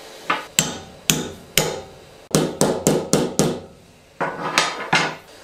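A hammer striking a flat steel bar laid over a ball bearing, tapping the bearing down into the bore of a 3D-printed handle. About four spaced blows come first, then a quick run of six or so, then four more.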